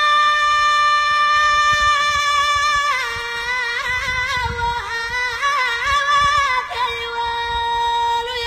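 A solo voice singing tamawayt, the unaccompanied Amazigh chant of the Atlas mountains: a long held high note, then a stretch of wavering, ornamented melody, then another long held note that cuts off abruptly at the end.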